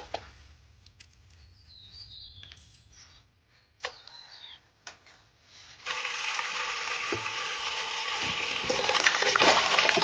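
A few small snaps as the spring toona shoots are pinched and their old husks stripped off, with faint bird chirps. About six seconds in, water starts running steadily, as from a tap into a basin for washing the shoots, and grows a little louder toward the end.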